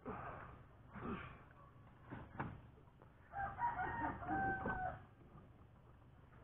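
A rooster crowing: one long call of about a second and a half, past the middle. It comes after a few short, dull knocks.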